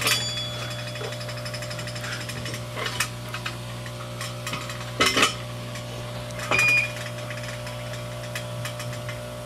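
Metal microsoldering tools clink and tap on the bench a few times, the first clink ringing briefly, over a steady electrical hum from the bench equipment. A short electronic beep sounds about two-thirds of the way in.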